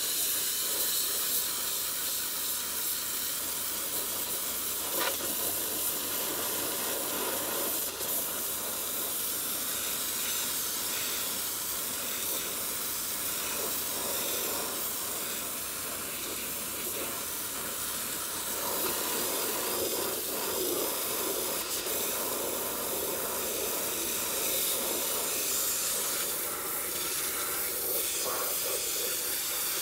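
Wet sandblasting: a pressure washer wand with a sand-pickup blasting nozzle shooting a jet of water and sand against a pickup's steel frame, a steady hiss.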